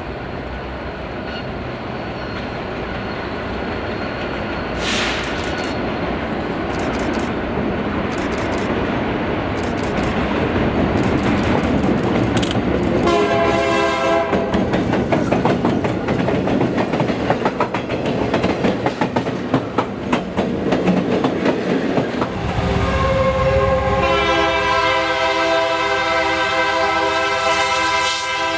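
An EMD SD45 diesel locomotive's 20-cylinder engine growing louder as the train approaches over a steel bridge. It passes close with its wheels clicking rapidly over the rail joints. The air horn blows a chord briefly about 13 seconds in, then sounds long through the last six seconds.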